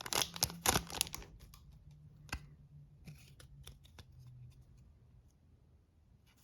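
Trading cards being handled and slid past one another by hand: a busy rustle of card stock for the first second or so, then sparse light clicks and rustles that die down.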